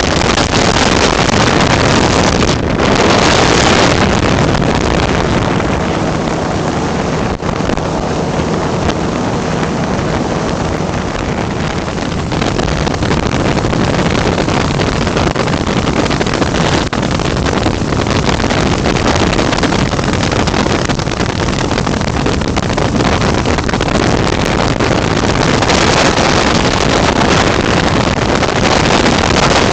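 Flex-wing microlight trike's engine running in cruise, a steady drone under heavy wind rush on the open-cockpit microphone.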